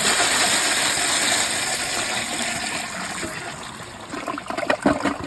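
Glacier Bay Pro Series toilet flushing from a mid-height tank with its siphon jet blocked: a loud rush of water that eases off over about four seconds, with a few choppy splashes near the end. Even with the jet blocked the flush is very, very powerful.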